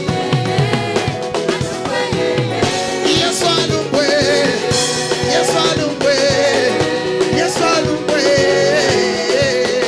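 Live gospel praise music: a lead singer and choir sing over instrumental backing with a steady beat.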